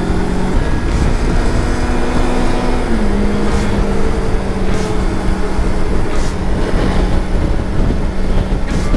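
Kawasaki Versys-X 300 parallel-twin engine running at steady revs while riding, its pitch stepping up slightly about three seconds in, over a low rumble of road and wind noise. A few short knocks are heard.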